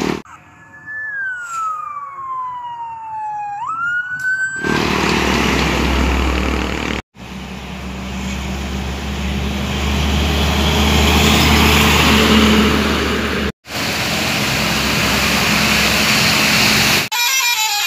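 Heavy trucks passing on a road, engine rumble and tyre noise swelling and fading, in several clips joined by abrupt cuts. The sequence opens with a single whistle-like tone that slides down for about three seconds and then jumps back up.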